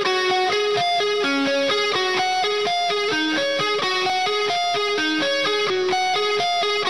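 Music: a guitar picking a fast, repeating run of single notes at a steady level.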